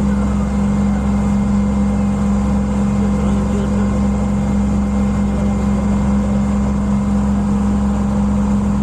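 A boat's engine running at a steady speed: a constant drone with a strong hum, even in level and pitch throughout.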